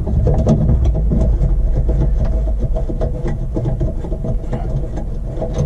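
A screwdriver undoing a screw in a car's plastic rear trim panel: many small clicks and scrapes. Under them runs a steady low rumble.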